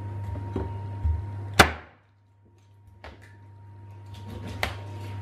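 Chef's knife cutting raw chicken thighs on a plastic cutting board: a few separate knocks of the blade and meat against the board, the loudest a sharp knock about one and a half seconds in. A steady low hum runs underneath.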